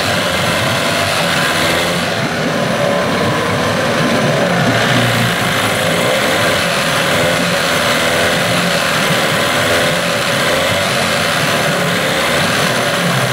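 Johnson 15 hp outboard motor running steadily in a test tank on a test run after repair.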